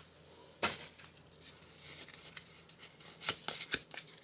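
A Pokémon booster pack being opened: scattered crinkles and clicks of the foil wrapper and cards being handled, with a sharp one about half a second in and a quick run of them near the end.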